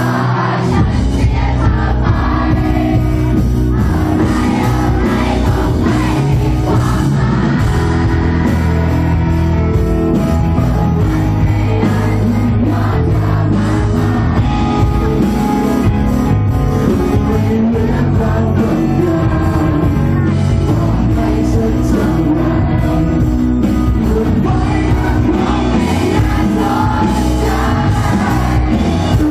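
A rock band playing live, with a male singer over electric guitar and bass. It is loud and continuous, heard from the audience.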